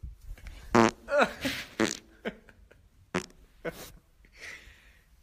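A man making several short buzzy, fart-like noises, some of them falling in pitch. Two short sharp clicks about half a second apart follow.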